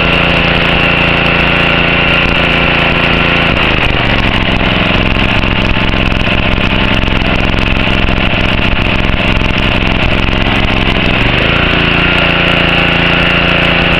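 Honda GCV135 single-cylinder four-stroke engine on a pressure washer running steadily. Its note shifts about four seconds in and shifts back near the end.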